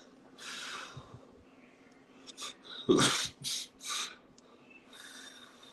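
A few short, noisy breaths close to the microphone, the loudest about three seconds in and two more quickly after it.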